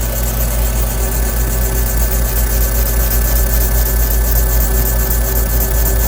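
Laser machine running a pass over an iPhone: a steady loud hum with a few held tones and a high hiss that pulses about five times a second.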